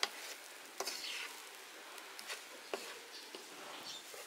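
Egg fried rice sizzling in a non-stick pan as a wooden spatula stirs and turns it, with a handful of short sharp scrapes and taps of the spatula against the pan over a steady sizzle.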